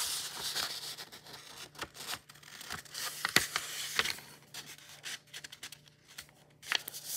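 A sheet of paper being folded in half and creased flat by hand against a wooden tabletop: rustling and rubbing with scattered small clicks. It quiets for a couple of seconds, then picks up again near the end.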